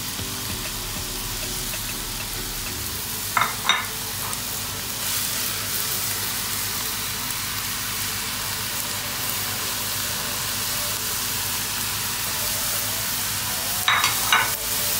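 Chopped red onion and garlic sizzling in olive oil in a frying pan, a steady hiss that grows a little louder about five seconds in as diced butternut squash is scraped into the pan. Brief clinks of the plate and spatula against the pan sound twice, a few seconds in and near the end.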